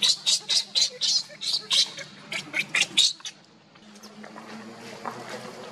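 Baby macaque crying: a quick run of short, high-pitched squeals, about four a second, that stops about three seconds in.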